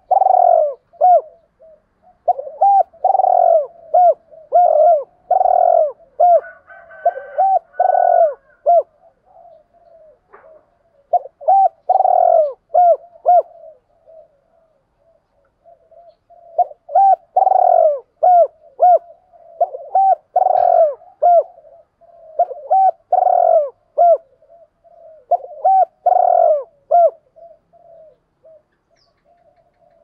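Spotted dove cooing in repeated phrases, in three bouts that pause about ten seconds in and again around fifteen seconds.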